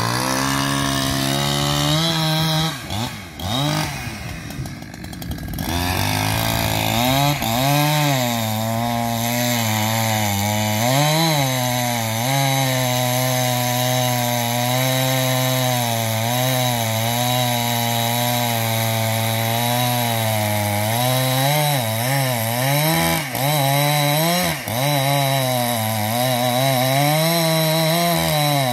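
Chainsaw running under load through timber, its engine pitch repeatedly dipping and recovering as the chain bites into the wood. The pitch falters and the sound wavers for a few seconds near the start before it settles into the cut.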